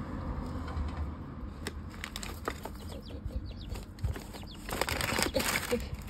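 Paper towels and newspaper rustling and crinkling as they are handled, with scattered light clicks and taps. A louder burst of rustling comes about five seconds in.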